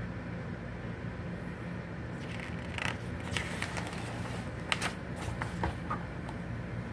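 Glossy magazine pages being turned by hand, a run of crisp paper rustles and crackles from about two seconds in until about six seconds. A steady low hum underneath.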